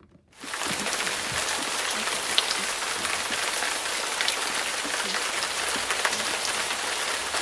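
Water running from a sink tap, a steady splashing hiss that starts suddenly about half a second in.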